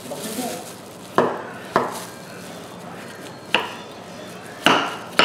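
A kitchen knife chopping butternut squash on a wooden cutting board: about five sharp strikes at uneven intervals.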